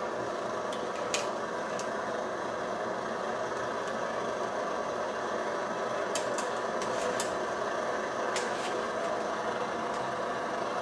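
MSR Dragonfly multi-fuel stove burning, its pressurised burner giving a steady rushing hiss, with a few faint light clicks.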